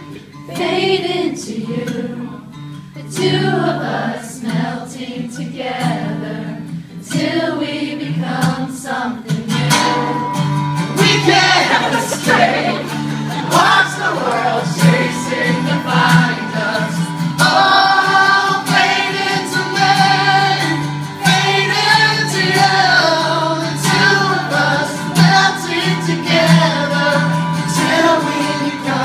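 Live solo acoustic performance: a male singer singing over his own strummed acoustic guitar. The accompaniment grows fuller about ten seconds in.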